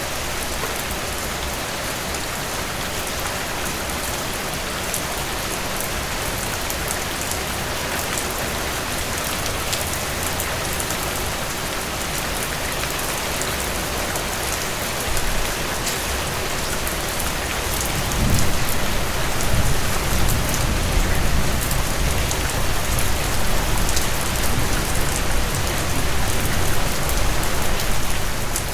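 Heavy rain pouring steadily, with scattered individual drops ticking close by. About two-thirds of the way in, a low rumble of thunder builds and rolls on, louder, until near the end.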